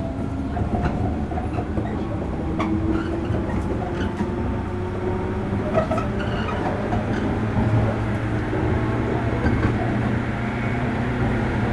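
Running noise inside a 103 series electric train's motor car: a steady rumble of wheels on the rails with scattered clicks, and traction motor and gear whine rising slowly in pitch as the train gathers speed.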